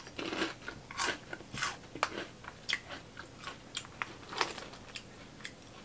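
A person biting and chewing crunchy Flamin' Hot Cheetos, with irregular crisp crunches one or two a second.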